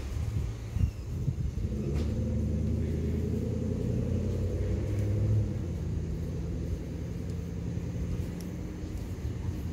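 Ice cream truck's engine idling, a steady low rumble that eases slightly about halfway through.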